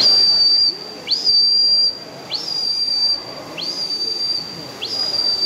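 Five loud, high whistles in a steady rhythm about one every 1.2 seconds. Each sweeps up sharply and then holds one steady note.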